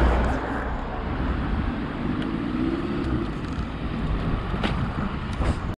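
Light road traffic: a car running at low speed on a street, its engine note rising briefly about two seconds in, over wind rumble on the microphone.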